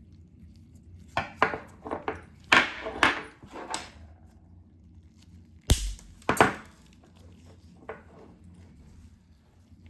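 Sharp clicks and knocks of orthodontic pliers working 0.7 mm stainless steel wire: a quick run of clicks in the first few seconds, then two heavier knocks, the first with a dull thud, and one small click near the end. A steady low hum sits underneath.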